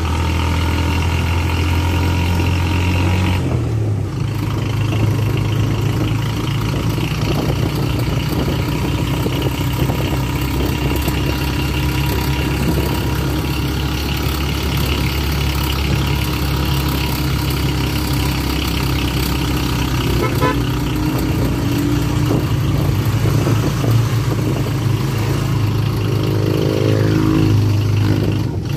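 Motorcycle engine of a motorela, a motorcycle-drawn passenger cab, running steadily under way, with a brief dip and change in pitch about four seconds in. A rising tone comes in near the end.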